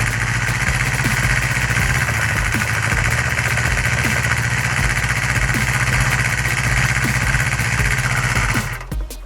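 Honda MC23 Jade's MC14E 250 cc inline-four engine running steadily at idle, with faint regular ticks; the engine has an abnormal noise that the owner sets out to cure by replacing the clutch. The sound cuts off abruptly shortly before the end.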